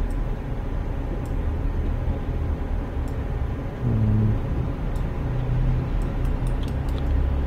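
Steady low rumble and hiss of background room noise, with faint light mouse clicks scattered through it.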